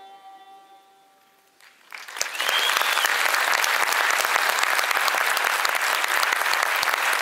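A fiddle's last held note fades away, and about two seconds in an audience breaks into loud, steady applause, with a short high whistle sounding through it.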